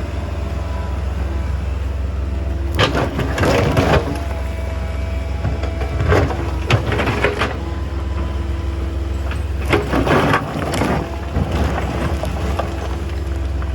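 Excavator's diesel engine running steadily, with four bursts of clattering and scraping as the bucket works stony soil to sift the stones from the earth.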